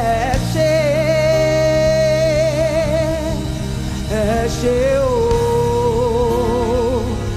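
Gospel worship music: a voice holds long, wavering notes over a steady low accompaniment, moving to new notes about four and five seconds in.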